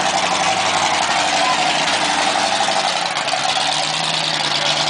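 Car engines running at idle: a turbocharged VW Voyage with a Ford Maverick in the background. The sound is steady, with a lower steady note coming in about four seconds in.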